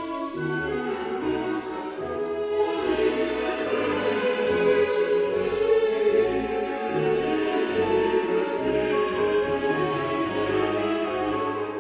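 Background orchestral music with a choir singing sustained notes.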